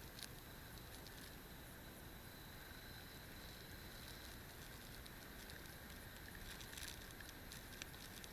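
Near silence: a faint steady hiss with a thin high whine and a few faint clicks, about a second apart near the end.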